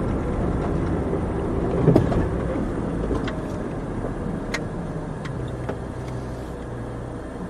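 Car interior noise while driving: a steady low engine and road rumble that eases off as the car slows to a stop, with a few faint ticks in the cabin.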